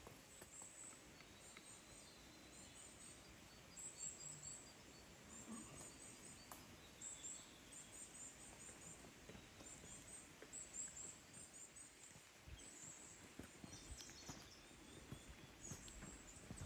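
Near silence with faint birdsong: short, high chirping phrases repeat every second or so.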